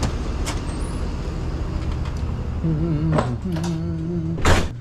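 Steady low rumble of idling truck engines at a loading dock, ending with a short, loud door noise about four and a half seconds in.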